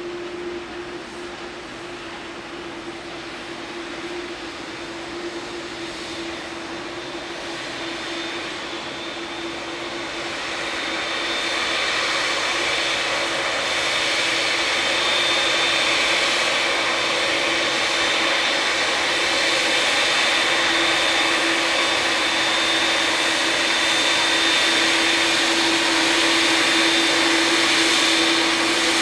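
Jet engines of a taxiing Boeing 787 (General Electric GEnx turbofans) at taxi idle: a steady rushing noise with a held tone, growing louder about ten seconds in as the aircraft turns toward the listener.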